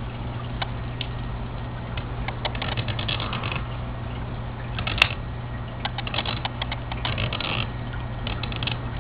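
Mechanical plug-in dial timer being twisted by hand, its dial ratcheting in runs of quick clicks, with one sharper single click about five seconds in. A steady low hum runs underneath.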